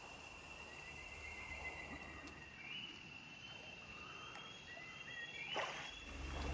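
Tropical forest ambience: a steady high insect drone with short chirping animal calls over it, and one sharp click about five and a half seconds in.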